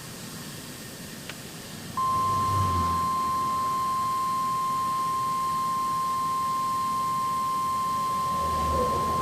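Weather radio alert tone: a single steady high beep that starts abruptly about two seconds in and holds unbroken, the warning signal that comes before a severe-weather bulletin. Faint hiss comes before it.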